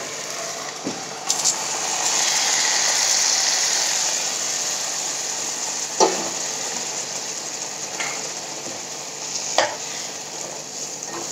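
Warm water poured from a steel plate into a hot pan of eggplant masala, hissing and sizzling as it hits and slowly dying down. A spatula knocks against the pan twice while stirring.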